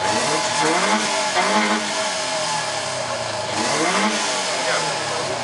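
A car's engine being revved hard through its exhaust, the pitch climbing and dropping about three times.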